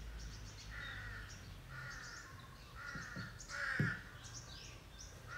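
A crow cawing several times, harsh calls about a second apart, with smaller birds chirping high above it. A single low knock sounds about four seconds in.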